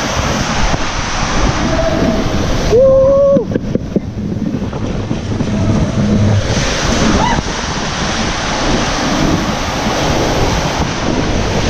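Water rushing under an inflatable raft as it slides down a water-slide tube, with wind buffeting the camera microphone. A short pitched shout from a rider about three seconds in.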